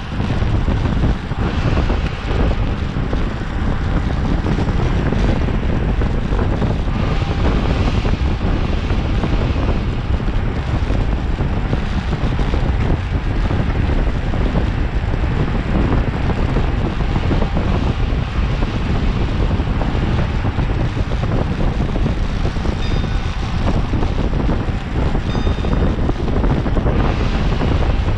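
Steady wind rushing over the microphone of a camera carried on a bicycle ridden at race speed.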